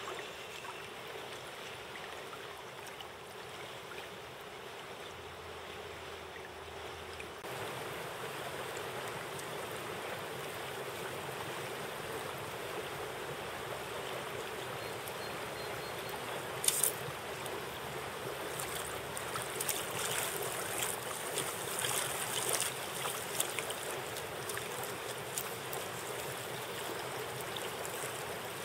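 River water flowing steadily. There is one sharp click a little past halfway through, and a few small clicks after it.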